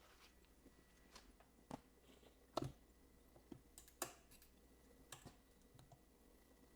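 Near silence with a few faint, scattered clicks and light taps, about seven in all, the loudest about two and a half seconds in.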